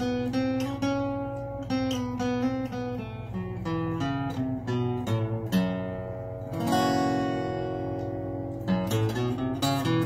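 Solo acoustic guitar with a capo playing blues: single notes picked over a steady bass, then a chord strummed about two-thirds through and left ringing for about two seconds before the picking picks up again.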